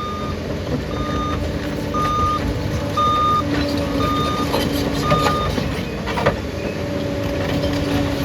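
Bulldozer reversing: its back-up alarm beeps six times, about once a second, over the steady running of its diesel engine, then stops, followed by a few metallic knocks.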